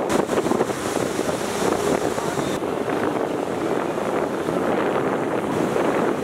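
Wind buffeting the microphone and water rushing past the hull of a large tour boat under way: a steady noise.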